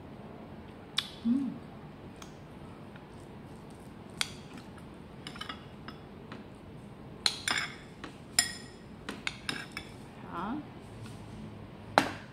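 Cutlery clinking against bowls while eating: about ten irregular sharp clinks, each with a short ring, the loudest near the end.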